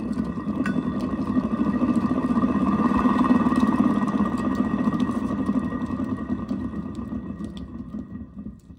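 Wells-Index 847 pulley assembly spun by hand on its bearings: a rough rumble with a steady ringing tone that swells for a few seconds, then dies away as it coasts down. These are the bearings the owner needs to replace.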